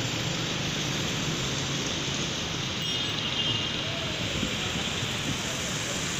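Steady road traffic noise at a city intersection: cars and motorcycles running past.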